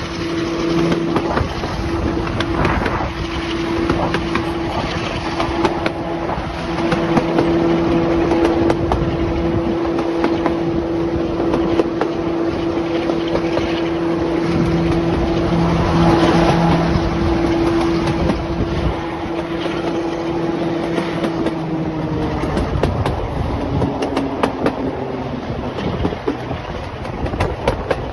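Class 45 diesel locomotive's Sulzer twelve-cylinder engine running steadily under power as the train moves, heard through an open carriage window with wind rushing past and wheels clicking on the rails. Near the end the engine note drops lower.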